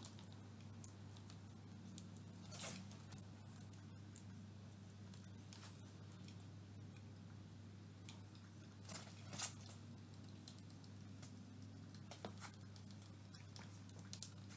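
Faint scattered clicks and light knocks from hands fitting wiring and a switch at a quad bike's handlebars, over a steady low hum.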